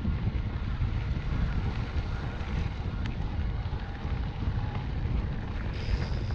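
Wind buffeting the microphone during a mountain-bike ride, a steady low rumble with gusty swings in level over the noise of the bike moving along the trail. A faint high whine comes in near the end.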